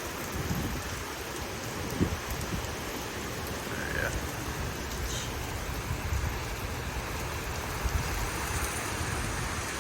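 Heavy thunderstorm rain falling steadily, with gusts of wind buffeting the microphone now and then. A single short chirp about four seconds in.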